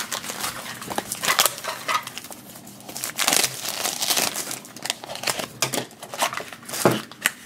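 Clear plastic wrapping being peeled and crinkled off a small plastic toy box: a run of irregular crackles and rustles, with the box handled in the hands.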